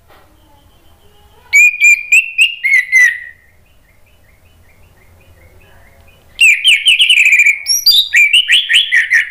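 Orange-headed thrush singing: a burst of quick, loud whistled notes about one and a half seconds in, a quiet pause, then a longer burst from about six and a half seconds in.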